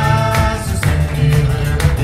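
Live band playing a Gnawa groove: strummed acoustic guitar over a heavy electric bass line, with sharp percussion hits about twice a second. A man's voice holds a sung note near the start.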